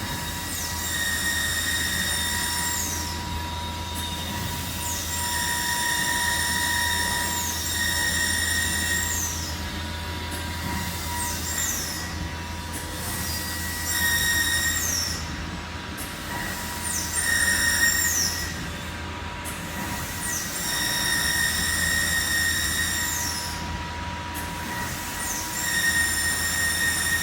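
High-pitched whine from a CNC machine's axis drive motors as the head makes repeated moves a couple of seconds long. The pitch ramps up and down at the start and end of each move, over a steady hum.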